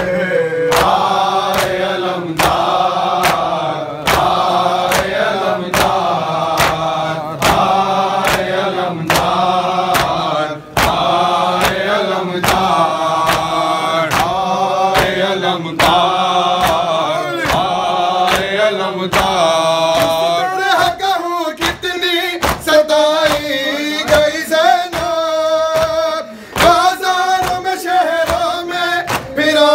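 Men's voices chanting an Urdu noha in chorus, with sharp beats at about three every two seconds keeping time, the matam (chest-beating) that carries the rhythm of a noha. About two-thirds of the way through the fuller chorus thins out and a smaller group or a lead voice carries the line.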